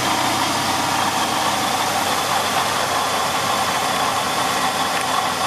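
2010 Jeep Liberty engine running under the open hood, with a steady squeal from the water pump's bearing. This is the sign of a failing water pump bearing; the pulley wobbles and the pump needs replacing.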